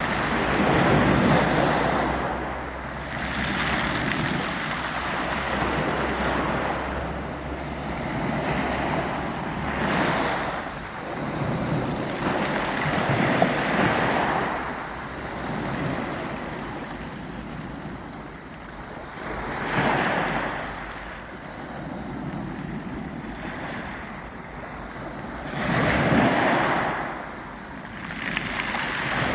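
Ocean surf: waves breaking and washing up the shore one after another every few seconds, each a swell of rushing noise that fades back, with some wind on the microphone.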